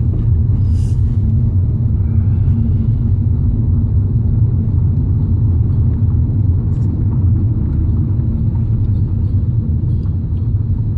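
Steady low rumble of a BMW driving at city speed, its engine and tyre noise heard from inside the cabin.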